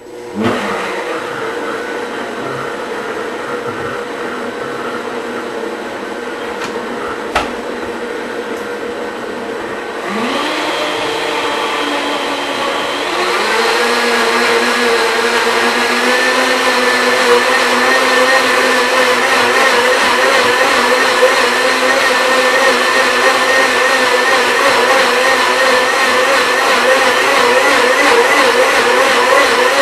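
Countertop blender running an automatic smoothie cycle on a thick protein shake thinned with extra almond milk. The motor starts at a lower speed, then steps up in pitch and loudness twice, about ten and thirteen seconds in, and runs on at high speed.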